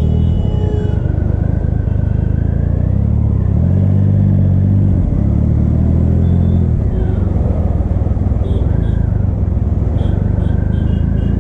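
Motorcycle engine running at low speed in slow traffic: a steady low rumble that rises for a few seconds in the middle as the throttle opens, then settles. A few short high beeps come in the second half.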